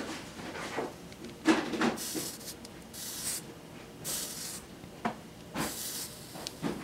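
Hot soldering iron tip wiped on a wet sponge, sizzling in four short hissing bursts as the water flashes to steam. There is a knock about one and a half seconds in.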